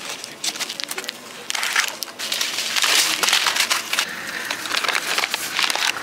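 Packaging crinkling and rustling close to the microphone as packets are handled: small sachets of cake sprinkles, then a stiff bag of coffee beans. The crinkling starts as scattered crackles and turns dense and louder about two seconds in.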